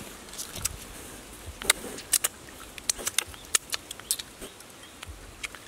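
Irregular small clicks and crackles of fingers tearing apart a charred grilled fish.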